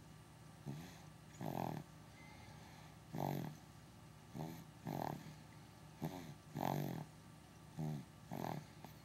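Snoring during a nap: five long, rough snores about 1.7 seconds apart, each with a shorter, fainter breath sound just before it.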